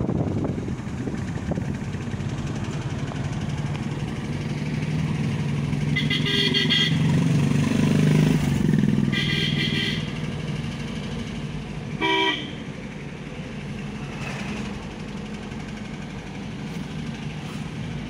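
Car engine and road noise heard from inside the cabin, with a vehicle horn honking three times: about six seconds in, again about nine seconds in, and a short toot around twelve seconds in.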